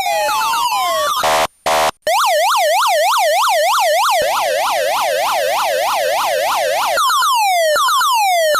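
Electronic police siren switching through its tones. A slow rising wail ends about a second in, followed by a short buzzing horn blast with two brief breaks. Then comes a fast yelp warbling up and down about three to four times a second, which changes near the end to a quick repeating falling sweep.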